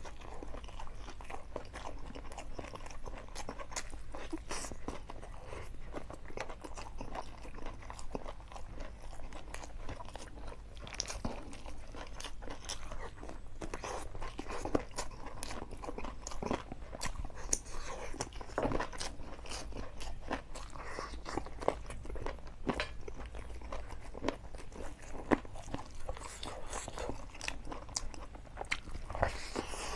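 Close-miked eating: a person biting and chewing chicken curry and fried rice with an open mouth, a dense run of short irregular clicks.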